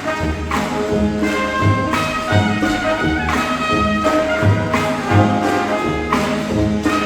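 Marching band playing: brass instruments carry a melody of held notes over a steady low drum beat.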